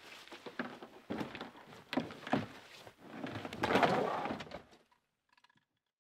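A backpack and gear being loaded into a car's open hatchback: rustling and scraping with several thunks, busiest and loudest about four seconds in, then the sound cuts off suddenly.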